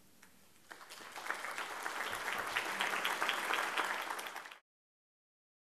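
Audience applauding, swelling quickly over the first second or so, then cut off abruptly.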